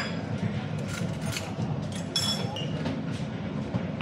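Ceramic cups and saucers clinking a few times, each with a short ringing tone, over a steady low hum of café machinery.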